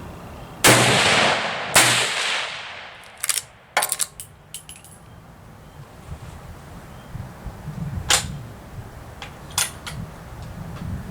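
Winchester Model 94 .22 Magnum lever-action rifle firing: two sharp reports about a second apart, each with a long echoing tail. Shorter metallic clicks follow, the lever being worked to cycle the action.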